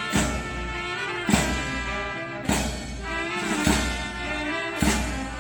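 Background music: an orchestral-style track with brass and a heavy drum hit about every second.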